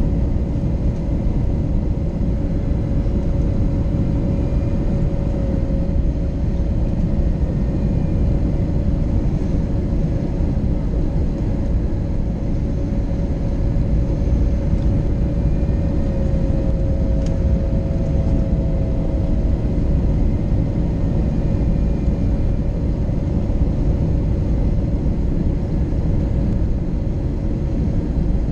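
Cabin noise inside an Airbus A321neo with Pratt & Whitney PW1100G geared turbofans on approach: a steady low roar of engines and airflow with a constant droning tone through it, which wavers slightly about two-thirds of the way in.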